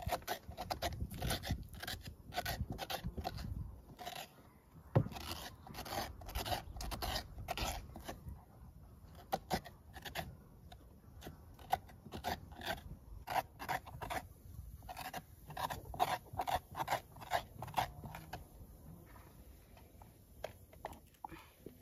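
Spoon scraping the inside of a halved pumpkin: repeated short rasping strokes, a few a second, with irregular pauses.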